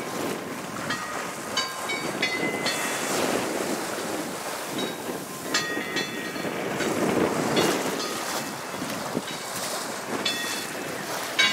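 The multi-toned gong of a lighted gong buoy, its clappers swung by the waves striking the gongs irregularly, each strike ringing on in several different pitches. Wind on the microphone and choppy water run underneath.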